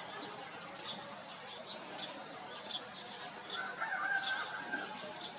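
Birds chirping: short high chirps repeating every half second or so, with a longer held call about four seconds in.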